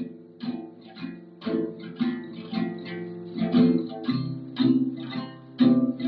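Acoustic guitar strummed, chords ringing at about two strokes a second.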